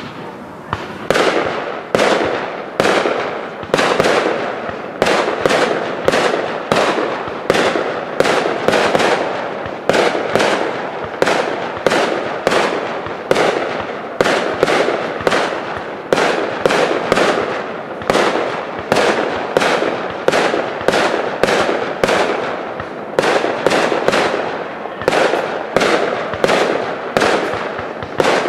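Aerial fireworks going off in rapid succession: a steady run of sharp bangs, about two to three a second, beginning about a second in.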